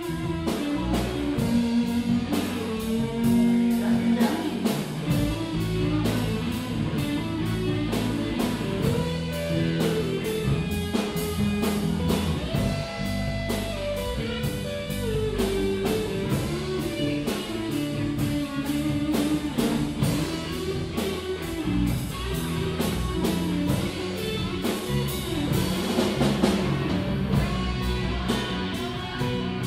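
Live band playing: a guitar carries the tune over a steady drum-kit beat.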